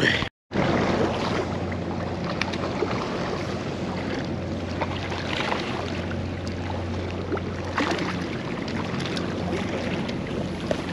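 Boat engine running with a steady low drone, under a wash of wind and water noise. The sound drops out completely for a moment about a third of a second in.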